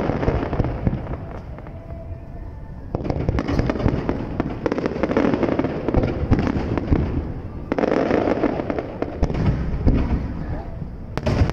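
Fireworks display: aerial shells bursting in rapid volleys with dense crackling pops over a low rumble. The barrage eases briefly about a second and a half in, then comes back thick and continuous about three seconds in.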